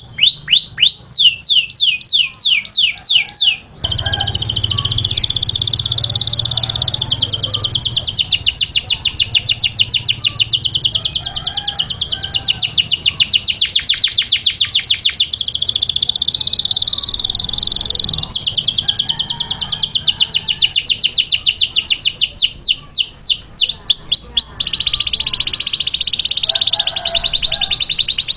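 Domestic canary singing a long, loud song: series of rapid downward-sweeping notes, then long, fast, rolling trills. The song breaks off briefly about four seconds in, and the sweeping notes return near the end.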